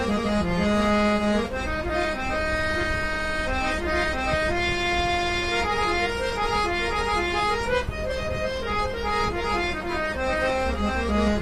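Two-reed-set portable harmonium with Jeevan Lal Rati Lal Mistri reeds, built by The Sa Re Ga Ma Company of Kolkata, played by hand: a melody of held and moving notes over a steady low drone.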